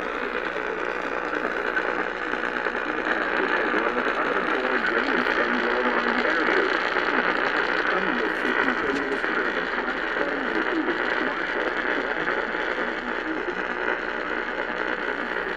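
Steady hiss and static of AM radio reception, with no clear voice or alert tones standing out.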